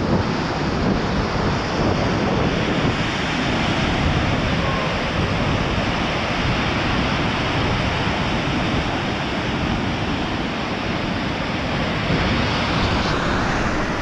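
Steady roar of a large waterfall and the rushing river below it, with some wind on the microphone.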